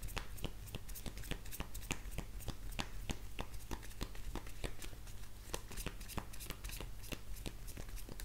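A deck of oracle cards being shuffled by hand: a steady, irregular patter of quick, light card clicks, several a second.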